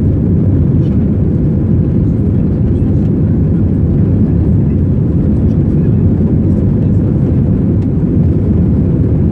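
Airbus A320 takeoff roll heard from inside the passenger cabin: the engines at takeoff power and the runway rumble make a loud, steady, deep noise.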